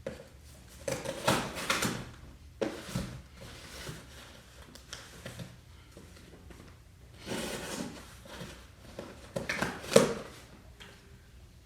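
Cardboard shipping box being opened by hand: irregular rustling, scraping and knocks of cardboard and packing, with a sharp knock about ten seconds in.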